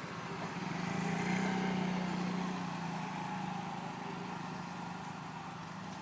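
A small engine running steadily, growing louder about a second in and then easing back down.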